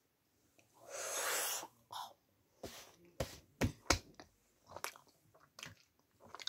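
Kinder egg chocolate being chewed close to the microphone: a short rush of noise about a second in, then a string of sharp crunches from about two and a half seconds on.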